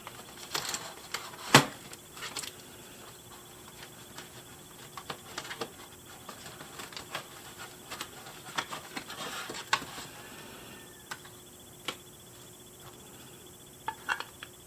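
A doll's box and packaging being handled: scattered clicks, taps and rustles, the loudest a sharp knock about a second and a half in.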